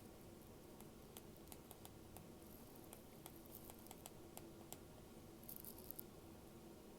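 Near silence with faint writing sounds: scattered light taps and a short scratch about five and a half seconds in, over a faint steady hum.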